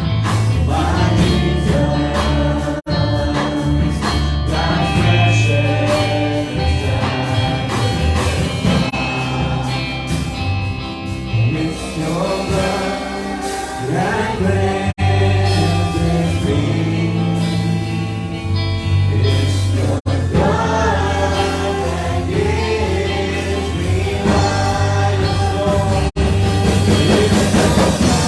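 Live gospel worship music: a band with a strong bass line under voices singing a worship song. The sound cuts out for an instant about four times.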